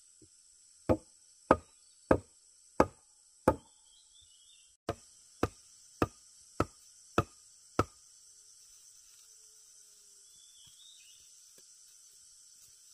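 Wooden mallet knocking a wooden stake into the ground: five blows about two a second, a short break, then six more. A steady insect buzz runs underneath.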